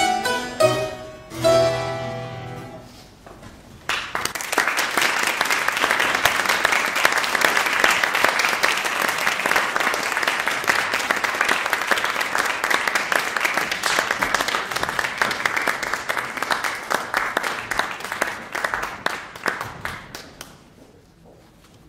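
The last chords of a mandolin and harpsichord duo ring out and die away, then an audience applauds for about sixteen seconds, the clapping thinning out and fading near the end.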